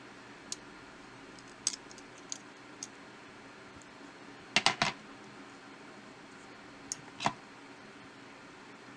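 Small hard clicks and taps of repair tools and phone parts being handled during a Xiaomi Mi 4 teardown: scattered single ticks, a quick run of three or four louder clicks about halfway through, and two more near the end, over a steady low hiss.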